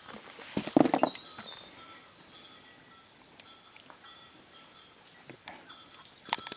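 Hiking footsteps on a rocky forest trail, irregular steps and scuffs with one loud crunching step about a second in. Songbirds are singing, with a quick phrase of high stepped notes just after that step and scattered short high calls throughout.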